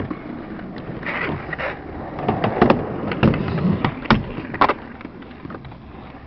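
A skateboard rolling, then a series of sharp clacks and knocks as the board is popped and hits the box and rail during a trick. The hardest hits come in the middle, and it settles to quieter rolling after about five seconds.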